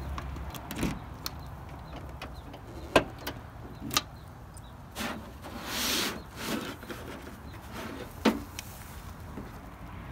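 Sharp clicks and knocks of hands and a key working at a Toyota sedan's closed trunk lid and latch, the loudest about three seconds in and another near the end, with a brief rustle about six seconds in.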